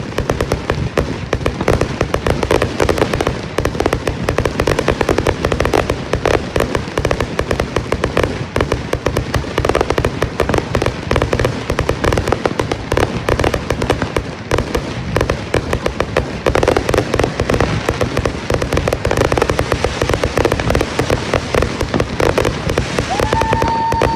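A dense, unbroken barrage of fireworks going off, rapid bangs and crackle overlapping one another. Near the end a steady whistle begins over the bangs.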